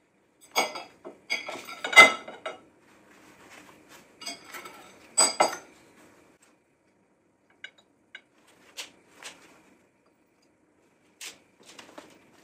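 Steel pliers clinking and scraping against a ceramic plate: a quick run of sharp clinks in the first few seconds, the loudest about two seconds in, then more around five seconds and a few sparse light ticks later.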